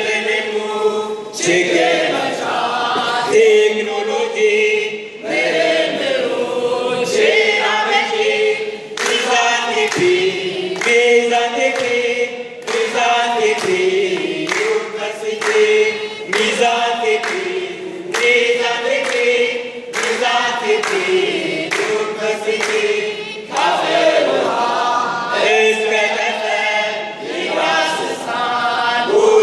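Young men singing together in chorus, unaccompanied, led by a voice on a microphone, with frequent sharp beats marking the rhythm.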